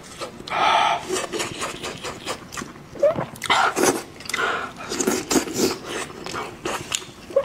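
Close-miked mouth sounds of someone chewing meat: wet smacking and clicking, with breaths in between, in uneven bursts.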